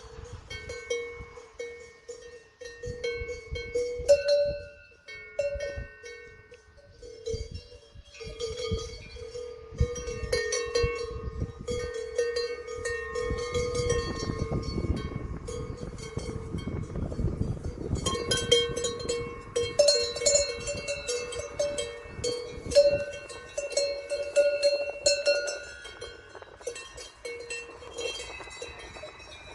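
Several livestock bells of different pitches clanking irregularly and overlapping as the animals move.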